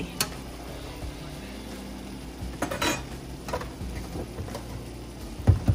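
A cooking utensil clinking and scraping against a pot of spaghetti as it is stirred, in a few scattered knocks, with a louder dull knock near the end.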